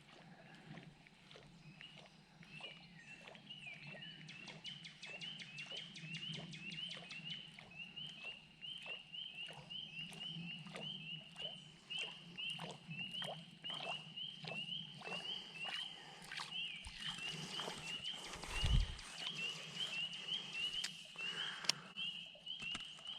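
Spring peepers calling around the pond: short, high, rising peeps repeated about twice a second. Beneath them run soft, regular ticks that stop a few seconds before the end, and there is one low thump near the end.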